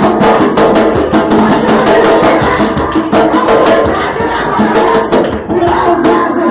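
Loud music with drums and percussion.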